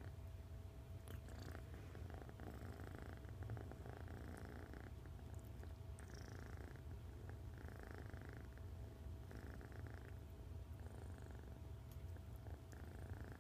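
Kitten purring, a faint steady rumble that swells and eases with its breathing about every second and a half.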